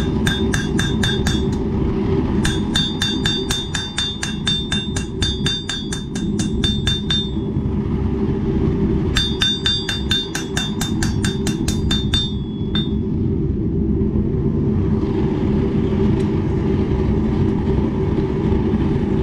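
Hand hammer striking a 1095 high-carbon steel knife blade on a railroad-track anvil to flatten out the hammer marks. The strikes ring and come about four a second, in three runs with short pauses between them, and stop about two-thirds of the way in. A steady low rumble lies under it throughout.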